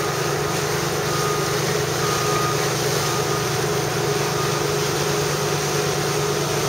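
Research vessel's engine running steadily: an even drone under a constant hiss.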